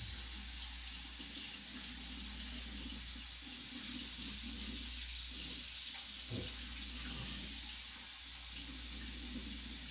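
Kitchen faucet running in a steady stream into the sink as gloved hands rinse raw poultry under it, with a faint knock about six and a half seconds in.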